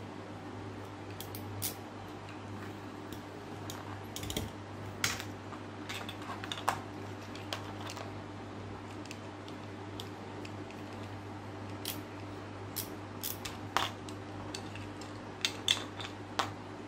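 Small plastic parts and a screwdriver being handled on a workbench: scattered sharp clicks and taps as a 3D-printed plastic motor housing is unscrewed, taken apart and its parts fitted back together, in two busy spells. A steady low hum runs underneath.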